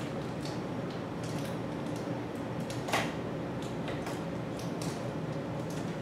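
Light metallic clicks and rattles of a road bike's chain and rear wheel being handled as the wheel is fitted back into the frame, with one sharper click about three seconds in, over a steady low hum.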